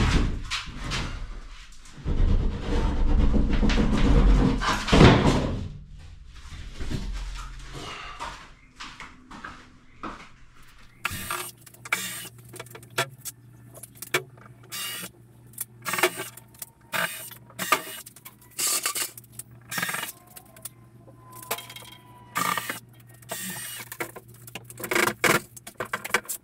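Plasterboard ceiling sheets being taken down and handled: a loud scraping rumble for the first few seconds, then a long run of sharp knocks and clatters.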